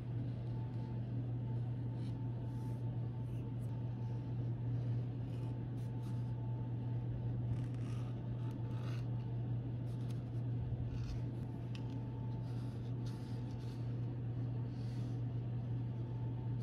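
Edge beveler shaving the edges of a leather knife sheath: short, faint scraping strokes, over a steady low hum.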